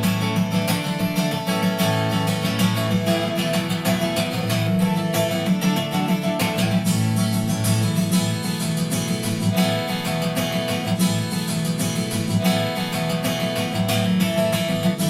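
Strummed acoustic guitar music played back through a portable Bluetooth speaker and picked up by a microphone.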